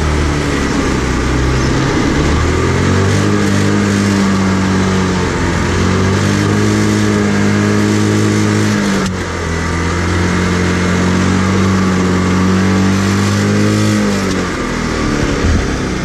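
Kart engine heard from the onboard camera, running hard with its pitch rising and falling gently through the corners, a brief dip about nine seconds in. Near the end the revs drop and the engine quietens as the kart slows.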